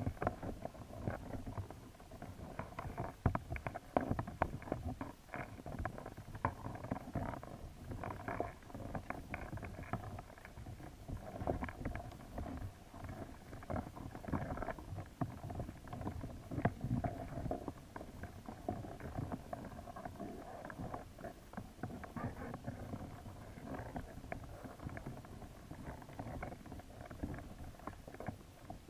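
Underwater sound picked up by a submerged camera: a muffled low rumble of moving water with many irregular clicks and knocks.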